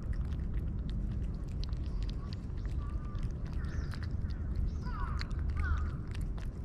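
Cats eating dry food: a rapid, uneven run of small crunches. A few short bird chirps come in about three seconds in and again around five seconds in.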